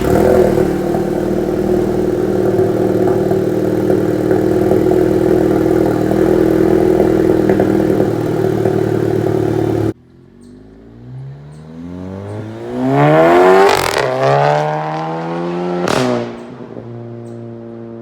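Modified 2015 VW Golf GTI Mk7's turbocharged 2.0-litre four-cylinder, breathing through an APR downpipe, Vibrant resonator and Borla S-Type cat-back exhaust, starting and holding a steady fast idle. About ten seconds in the sound breaks off abruptly; the engine is then revved up and back down, given a second short blip, and settles to a lower idle.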